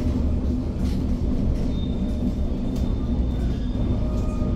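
Historic tram running along its rails, heard from the front platform: a steady low rumble of the wheels and running gear.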